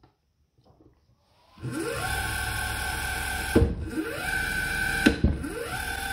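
550-watt servo spindle motor on an Emco Unimat 3 lathe starts about a second and a half in with a rising whine, then runs steadily. Twice it brakes hard to a stop with a sharp click and spins straight back up, reversing on the fly, at the controller's acceleration and braking setting of 2.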